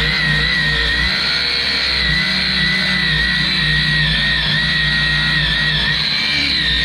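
DeWalt 20V cordless angle grinder with a wafer wheel grinding down a weld on a wood stove's steel plate. It gives a steady high whine whose pitch dips slightly now and then as the disc bears on the metal.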